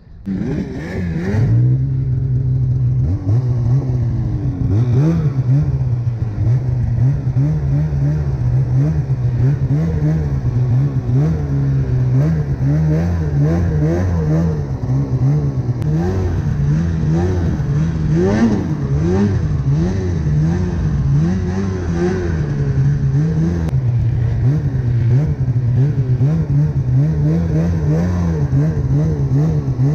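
Snowmobile engine revving up sharply at the start as the sled pulls away, then running hard with the throttle rising and falling as it is ridden through the snow.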